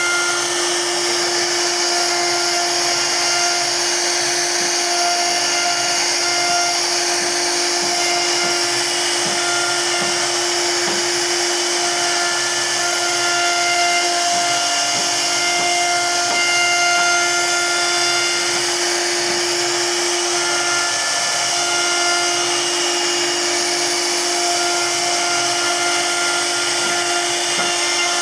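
CNC router's HSD spindle running at speed, its bit carving a relief pattern into a solid-wood door panel: a steady whine over a hiss of cutting.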